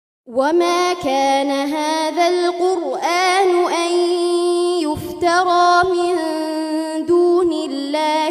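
A young girl reciting the Quran in melodic tajweed style: one long, drawn-out phrase of held, ornamented notes that starts just after a short pause.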